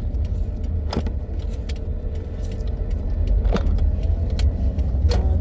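Steady low rumble of a car heard from inside the cabin, with a few sharp clicks or light rattles: one about a second in, one past the middle and one near the end.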